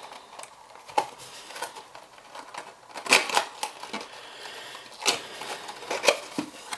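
Small cardboard box being handled and its inner tray slid out of the sleeve: irregular clicks, taps and short scrapes of cardboard, several sharp ones a second or two apart.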